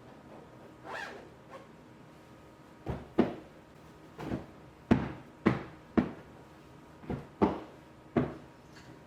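A run of about ten short, sharp rasping strokes from cleaning a bathroom, each dying away quickly, coming roughly every half second from about three seconds in, with a softer one near the start.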